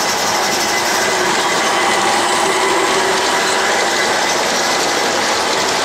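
G gauge model trains running on a layout: a steady mechanical rolling noise of wheels on the track and geared drives.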